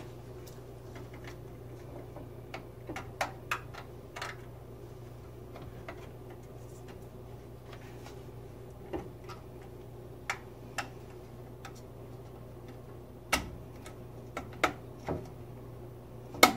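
Irregular small plastic clicks and taps as the new switch membrane's ribbon-cable connectors are worked into their sockets on a Whirlpool gas range's control board. The sharpest clicks come about a third of the way in and near the end. A steady low hum runs underneath.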